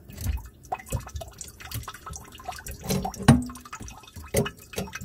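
Water dripping in irregular drops from an old shutoff valve under the sink that won't shut off all the way. The owner is sure this old valve is the culprit. A louder single knock comes a little past three seconds in.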